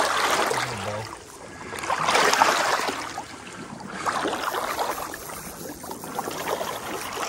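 Water splashing and sloshing around a kayak, swelling twice, with small drips and trickles.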